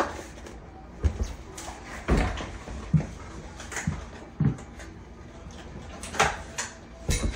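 Scattered knocks, clicks and clatter, roughly one a second and irregular, of hard parts and tools being handled and set down, over a low steady hum.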